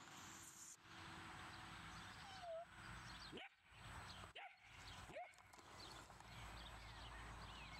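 Near silence: faint outdoor background with a few short, high chirps scattered through it.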